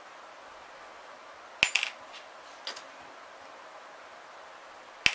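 Sharp metal clinks of a small hex key against the screws and metal case of a model glow engine as the timing cover screws are driven in: a quick cluster about one and a half seconds in, a lighter clink about a second later, and another near the end.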